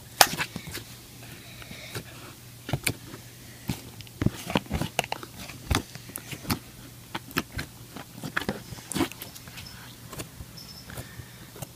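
Homemade slime squeezed and kneaded by hand close to the microphone, giving irregular sticky clicks and squelching pops.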